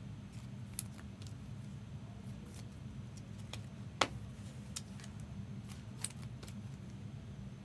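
Light clicks and rustles of trading cards being slid into plastic sleeves and top-loaders, with one sharper click about four seconds in, over a steady low hum.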